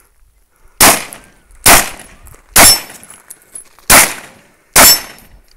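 Five shots from a Glock 19 9mm pistol, fired at an uneven pace a little under a second apart with a longer gap before the fourth. A thin high ring follows the third and fifth shots: the steel silhouette target being hit.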